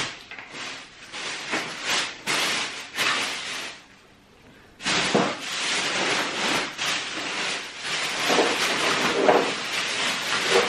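Thin plastic shopping bags rustling and crinkling as they are handled, with a short pause about four seconds in.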